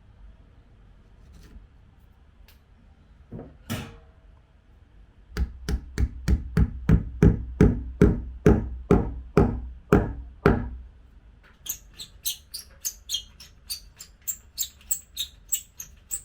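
Hammering: a couple of single knocks, then a fast run of about twenty heavy hammer blows at about four a second, followed by a run of lighter, sharper taps.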